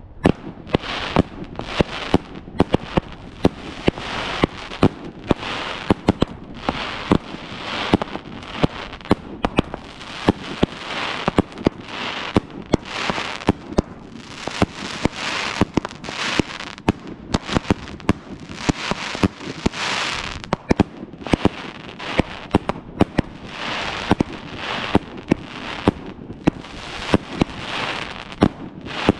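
A 2-inch, 66-shot Night Owl 'Big and Beautiful' compound firework cake firing, with sharp launch reports and hard-hitting breaks in quick succession, about two a second. A hissing haze follows many of the breaks.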